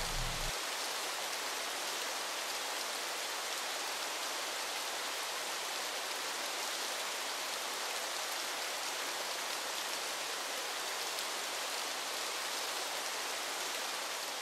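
Steady rain falling: an even hiss with no single drops or thunder standing out.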